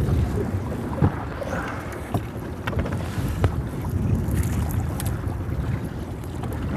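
Wind buffeting the microphone over water sloshing against a fishing boat, with a few sharp knocks.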